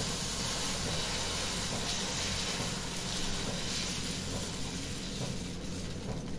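Steady hiss and sizzle of dosa batter on a hot nonstick tawa over a gas burner, as a steel ladle spreads it in a circle.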